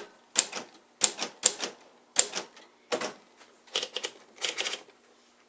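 1954 Royal Quiet De Luxe manual portable typewriter, its keys struck one at a time: about ten sharp clacks of the typebars at an uneven pace, stopping shortly before the end.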